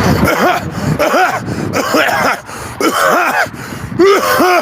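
A man coughing repeatedly in short, voiced hacks, several a second in clusters.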